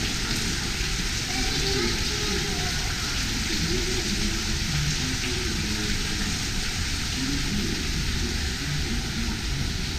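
Steady rush of an indoor waterfall and water sheeting over a ledge into a pool, with voices of other people faintly in the background.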